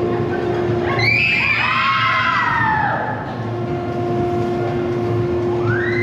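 A group of voices screaming together, several overlapping shrieks that rise and fall in pitch, about a second in and again near the end, over a steady hum.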